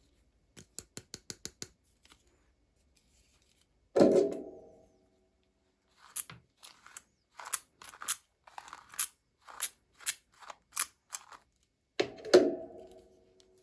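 Scissors snipping through doll packaging in a quick run of light clicks, then about a dozen crisp snips. Two loud hollow knocks with a short ring, one about four seconds in and one near the end, as things are set down.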